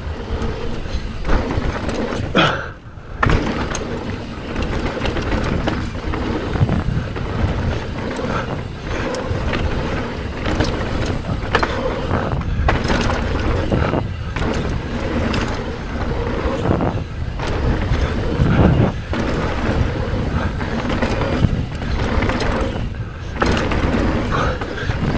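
Trek Slash 8 full-suspension enduro mountain bike ridden fast down a dirt trail: a continuous rush of wind noise and tyre rumble with scattered knocks from the ground. The noise dips briefly about three seconds in and again near the end.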